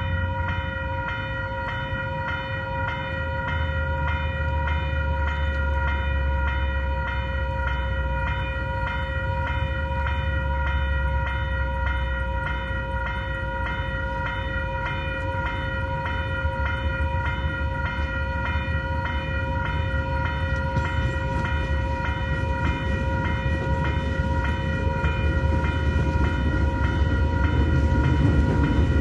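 Level crossing warning bells ringing in a fast, even, continuous rhythm, over the low rumble of approaching KiwiRail DL- and DFB-class diesel locomotives that grows louder near the end.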